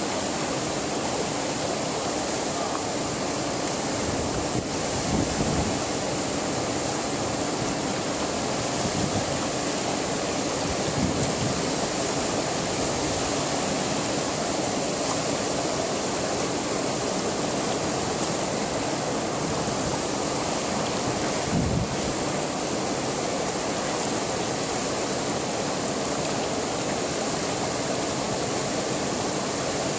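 River water pouring over a low dam spillway and rushing through rocky whitewater rapids: a steady, dense rush of water, with a few brief low bumps about 5, 11 and 22 seconds in.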